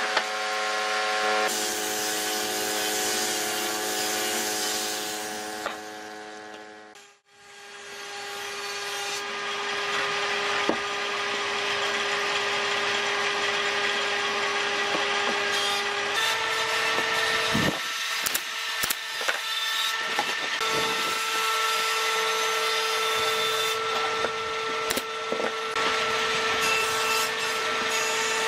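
Electric power tool sanding wood: a steady motor whine over abrasive rubbing. It cuts out briefly about seven seconds in and changes pitch about halfway through, with a few sharp knocks near the two-thirds mark.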